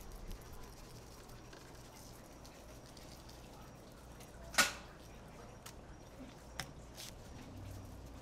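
Faint steady low hum with one sharp tap about halfway through and a few lighter ticks after it.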